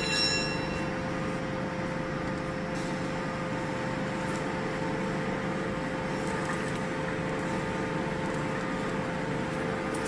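ENERPAT VB30S vertical baler's hydraulic power unit running steadily: an even machine hum with a constant tone.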